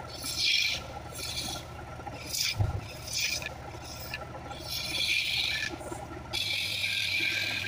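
Hand-held turning chisel cutting into a wooden blank spinning on a motor-driven wood lathe. About six hissing, rasping cuts come one after another, the last one longest, over the lathe motor's steady hum. There is one low thump about two and a half seconds in.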